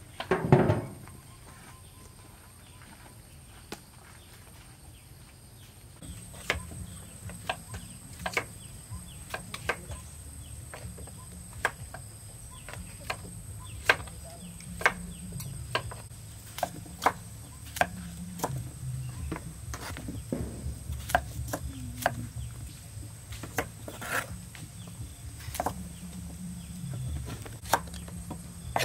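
A metal lid set down on a large iron wok with a loud clank about half a second in, then knives chopping white root vegetables on wooden chopping blocks: irregular sharp knocks of the blade hitting the board.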